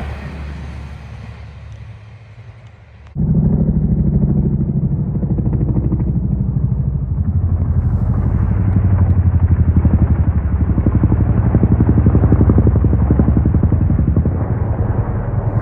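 Diesel railcar engine running loudly with a fast, even throb, starting abruptly about three seconds in after the fading noise of a passing train.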